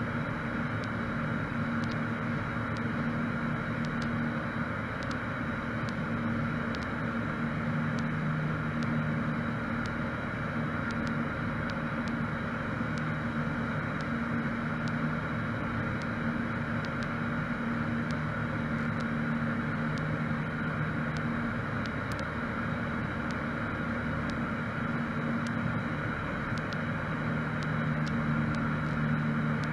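Cessna 152's four-cylinder Lycoming O-235 engine and propeller droning steadily in flight, heard inside the cabin.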